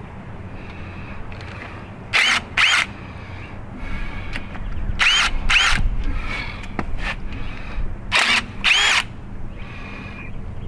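Handheld power driver spun in short trigger pulls, three pairs of quick bursts whose whine rises and falls each time, working bolts loose while the engine and transmission are taken apart.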